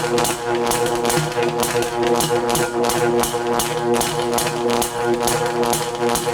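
Synthesized sci-fi sound effect: a steady electronic drone of several held tones, with a regular hissing pulse beating over it about two to three times a second.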